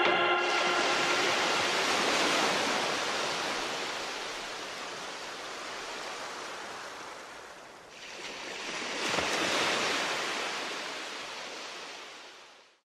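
A hissing wash of noise that slowly fades, swells again about eight seconds in, and dies away near the end.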